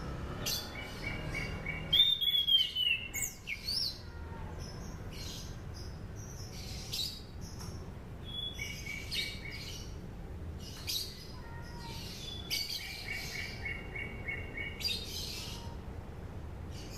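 Anis cendana thrush singing, used as a training call for thrushes. Its song is a varied run of short chirps and whistles with rapid trills. The loudest sound is a sliding whistle about two seconds in, heard over a steady low background noise.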